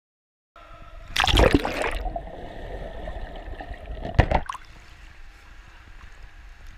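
Swimming-pool water splashing and gurgling, picked up by a camera at and under the water surface. There are two loud splashes, one about a second in and a shorter one around four seconds in.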